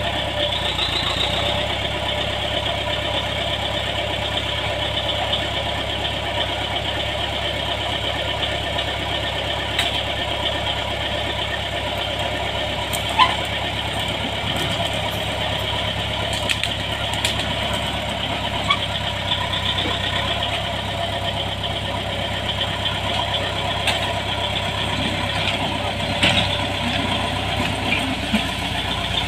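Small crawler bulldozer's diesel engine running steadily under work. A few short sharp knocks come through, the loudest about 13 seconds in.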